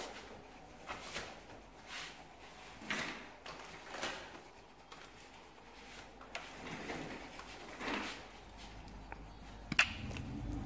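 Faint knocks and rustles of objects being handled on a table, coming every second or so, then one sharp click near the end.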